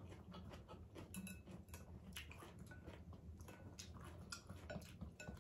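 Faint, scattered light clicks and taps, like small objects handled in a quiet room, just above near silence.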